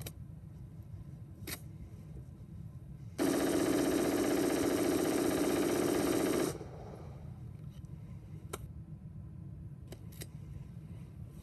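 AR-15 rifle firing one continuous fully automatic burst lasting about three seconds, starting about three seconds in: a magazine dump that heats the barrel toward 700 degrees. A few faint clicks come before and after the burst.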